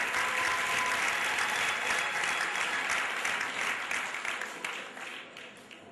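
Audience applauding, a dense patter of many hands clapping that thins out and fades over the last second or so.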